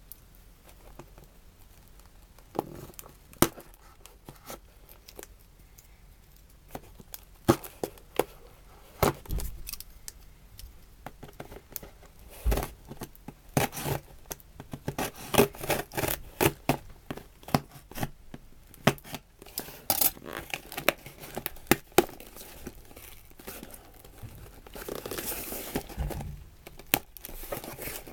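A parcel being torn and opened by hand: irregular tearing, crinkling and sharp clicks of paper or plastic packaging, with a longer tearing stretch near the end.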